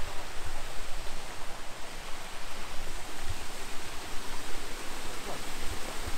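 Steady rushing of water from a small river waterfall, an even hiss with no break.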